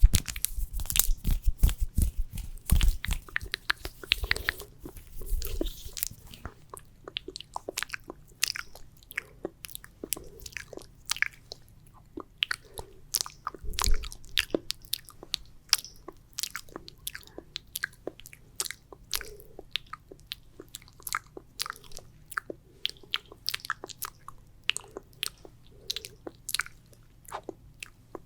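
Close-miked ASMR mouth sounds: sticky, wet saliva clicks and smacks in a quick, uneven run. Deep thumps come with them over the first few seconds and once again around the middle.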